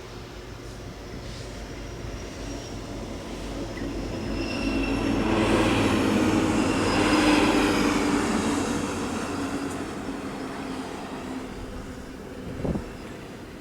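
A train passing on the rails. The rolling rumble of wheels builds to a peak about seven seconds in and then fades away, with a faint high wheel squeal near the middle and a single knock near the end.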